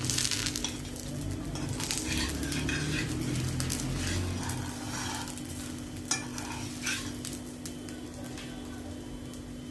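Pancake frying in oil in a pan, sizzling, with a utensil scraping and knocking against the pan every second or so.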